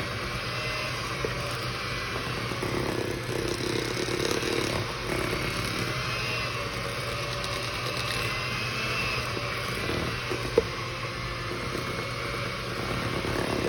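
Electric hand mixer running steadily, its beaters working thick brownie batter in a mixing bowl, with one sharp click about ten and a half seconds in.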